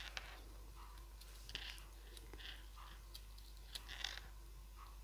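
Faint handling noises: scattered light clicks and paper rustles as paper butterfly cut-outs on a card are pressed and lifted with a pointed tool.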